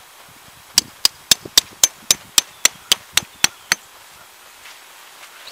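Hammer driving a tent stake into the ground to pin a poncho tarp's grommet: about a dozen quick, even strikes, roughly four a second, stopping a little before four seconds in.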